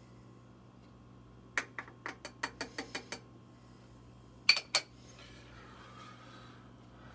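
A plastic makeup container's twist cap being turned, giving a quick run of about eight ratcheting clicks, then three louder sharp clacks a little later.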